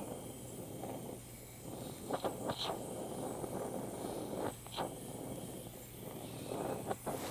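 Brazing torch flame hissing steadily against a cast-iron casting while bronze brazing rod is melted into the joint, with a few small sharp clicks around two and a half seconds in and again a little after four and a half.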